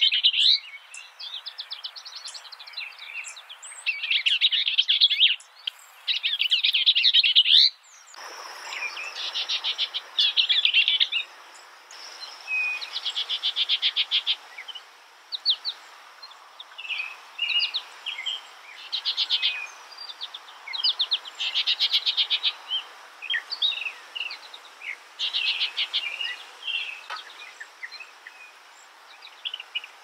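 A songbird singing phrases of rapid, high notes, each phrase lasting about a second and separated by short pauses. About eight seconds in, the background hiss changes abruptly, as if a different recording begins, and the song goes on in scattered notes and quick trills.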